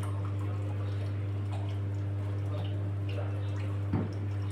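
Washing machine running: water dripping and splashing inside the drum over a steady low hum, with one louder splash near the end.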